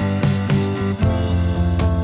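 Background music carried by plucked and strummed guitar.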